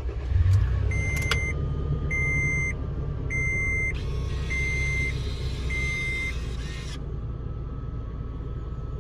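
A 2007 Toyota FJ Cruiser's 4.0 L V6 starts and settles into a steady idle, while the dashboard warning chime beeps five times at an even pace. Over the idle runs a faint high-pitched whirring, higher pitched than the engine, which the owner guesses is a failing idler pulley.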